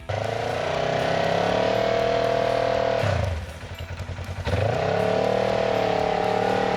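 Side-by-side UTV engine running hard under throttle, then dropping off for about a second and a half around three seconds in before revving back up and holding steady.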